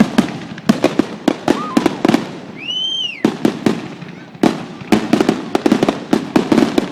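Fireworks finale: a rapid barrage of aerial shell bangs and crackles, with a brief rising-then-falling whistle about three seconds in.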